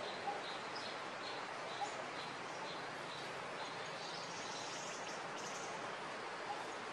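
Outdoor ambience: a steady hiss with a short, high chirp repeating about three times a second over it.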